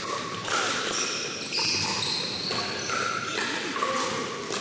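Pickleball rally on a hardwood gym floor: sharp pops of paddles striking the plastic ball, among many short, high squeaks of sneakers on the wood.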